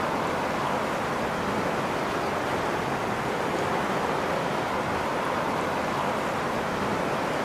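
River rapids rushing over rocks: a steady, unbroken rush of water.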